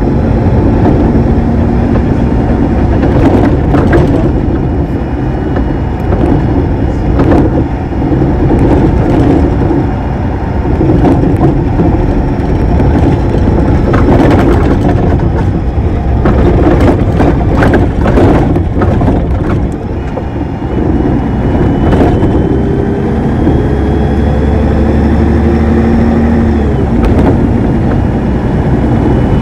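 Neoplan Centroliner bus's Voith Diwa 864.3E automatic gearbox and Mercedes-Benz OM 501 LA V6 diesel, heard close up through the gearbox hatch, running with frequent rattles and knocks. In the last several seconds a gearbox whine rises slowly in pitch.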